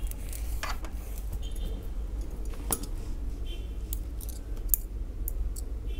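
Small plastic beads clicking lightly as one is picked out and slipped onto a metal crochet hook: a handful of short, sharp clicks about a second apart.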